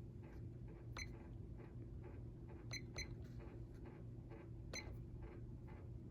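52-inch Hampton Bay Waterton ceiling fan running with a faint, steady motor hum and a few light clicks. The owner calls the fan a bit hummy and thinks this might come from one blade missing a screw.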